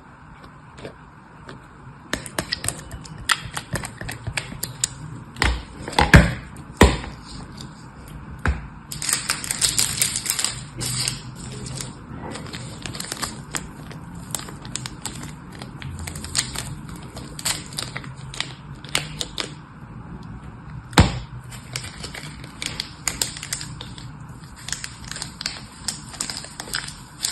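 Close handling of objects: a dense run of small clicks, taps and crackles, with a few louder knocks about 6, 7 and 21 seconds in.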